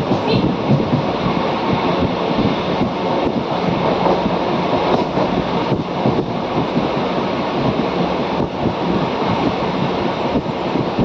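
Steady, loud rumbling noise with a few faint clicks scattered through it.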